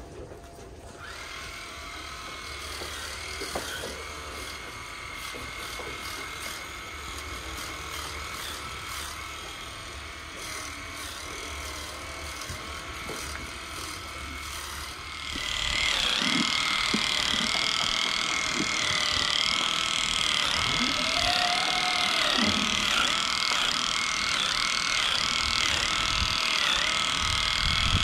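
Electric animal clippers running with a steady high whine, switched on about a second in; about halfway through they get clearly louder and their pitch dips briefly now and then as they cut through a cow's tail-switch hair.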